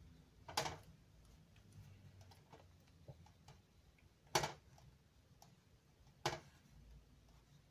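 Three sharp knocks a couple of seconds apart, each with a brief ring, and faint light ticks in between: a paintbrush and other painting tools being handled on the work surface.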